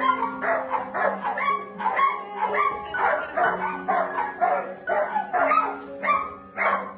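Background music with held notes, and a dog barking repeatedly, about two barks a second.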